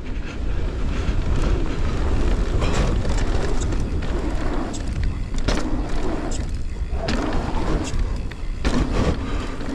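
KTM Prowler e-mountain bike ridden down a dirt jump trail: a steady low rumble of rolling on dirt, with several sharp knocks and rattles from the bike over the jumps.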